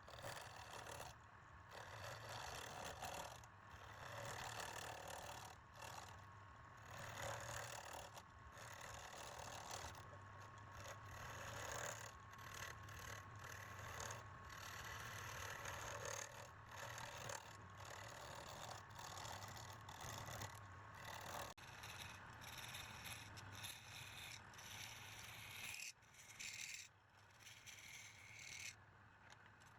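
Wood lathe running with a turning tool scraping and cutting the spinning wood, the cutting noise swelling and easing every second or two. The sound changes abruptly about two-thirds of the way through.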